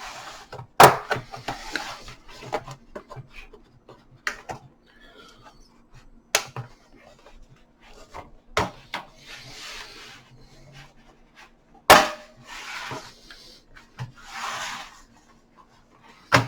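Plastic snap clips of a laptop's bottom case clicking loose as the cover is pried off, a sharp click every few seconds, with softer rubbing and scraping between them.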